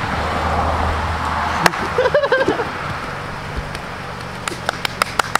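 A Toyota sedan pulling up a concrete driveway with its engine running. The steady low hum stops with a sharp click about a second and a half in, and a few sharp clicks come near the end.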